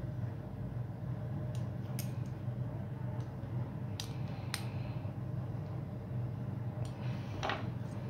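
Sharp metal clicks and taps, about five of them, from a small hex key and screws on the aluminium body of a model nitro engine being assembled by hand, with a short scraping rub near the end. A steady low hum runs underneath.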